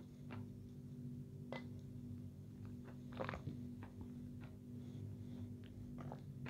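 Close-up mouth sounds of eating: a sip from a mug, then chewing with scattered soft clicks at uneven spacing, over a low steady hum.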